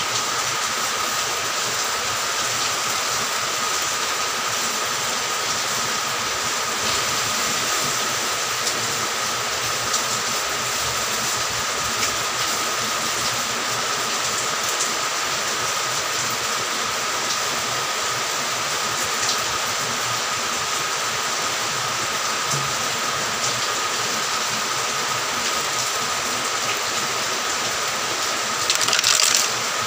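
A steady mechanical whirring noise with a constant high whine. Near the end, fertiliser granules rattle as they are poured through a plastic-bag funnel into a plastic bottle.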